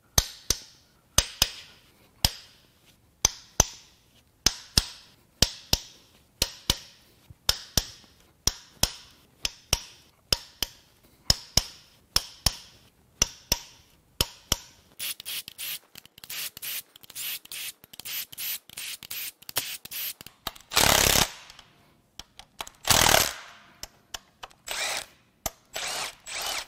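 Hand ratchet on the camshaft-carrier bolts of a BMW S55 cylinder head: sharp metallic clicks about once or twice a second as the bolts are cracked loose. In the second half the clicking turns rapid, and a cordless power tool runs twice, about a second each time, near the end.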